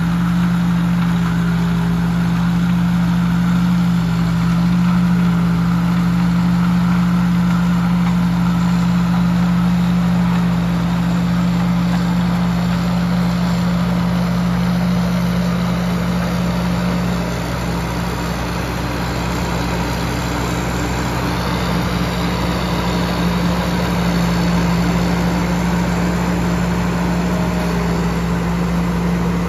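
Tamco S7000 combine harvester's diesel engine running steadily with a constant hum, easing off slightly for a couple of seconds a little past halfway.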